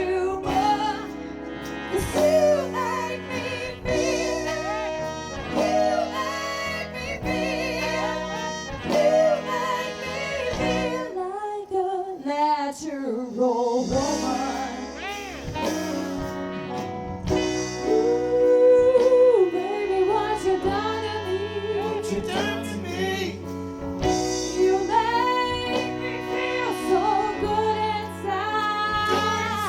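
Live soul band with a horn section playing, with a sung lead line over bass and drums.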